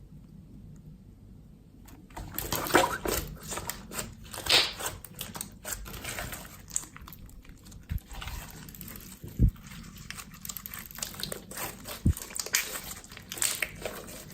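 Clear slime being squished and stretched by hand, making a run of wet clicks and crackles that starts about two seconds in, with a few soft low thumps.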